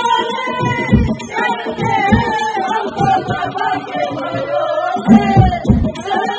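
Women singing a devotional kirtan song into microphones over amplified music, with a drum beat thumping about once a second.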